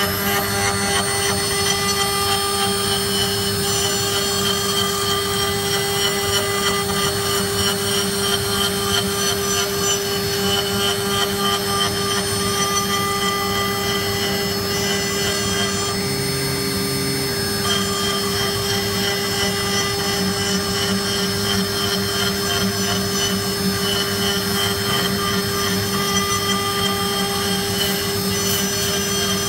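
CNC router spindle running as its bit carves a wooden cylinder turning on the rotary axis: a steady machine whine with cutting noise and a brief shift in tone about halfway through.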